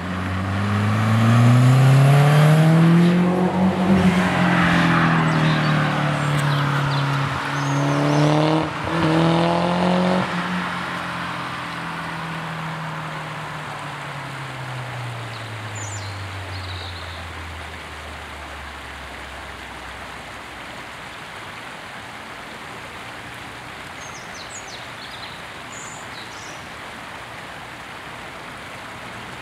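Volvo 1.9 T4's turbocharged four-cylinder (B4194T) with a 3-inch downpipe and twin 2.75-inch mufflers, accelerating hard past. The exhaust note climbs in pitch, drops back about four seconds in and again near nine seconds as it changes gear, then falls in pitch and fades as the car pulls away. After about twenty seconds only faint outdoor ambience with a few bird chirps remains.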